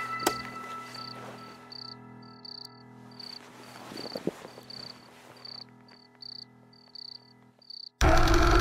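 Crickets chirping in short high chirps, roughly two a second, over a faint low music drone. Near the end a sudden loud noise cuts in.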